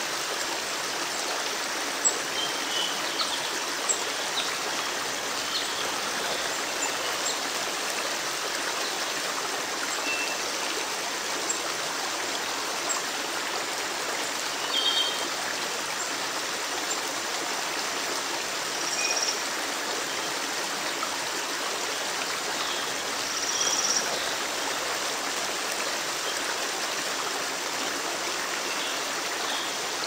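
A shallow woodland stream flowing over rocks: a steady, even rush of running water, with a few brief high notes over it.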